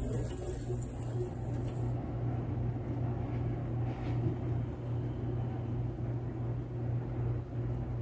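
BlitzHome countertop dishwasher running a wash cycle: a steady low hum from its circulation pump with water churning inside. For about the first two seconds water spray hisses against the door glass, then only the steady hum remains.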